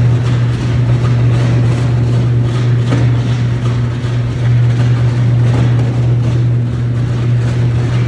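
1970s three-phase electric arc furnace arcing as it melts scrap steel: a loud, steady low hum with irregular crackling over it.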